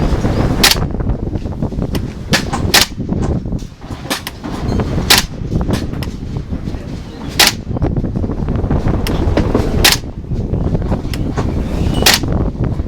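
Gas blowback airsoft rifle firing single shots, about seven sharp cracks a second or more apart, each with the bolt's blowback clack. Strong wind buffets the microphone with a steady low rumble underneath.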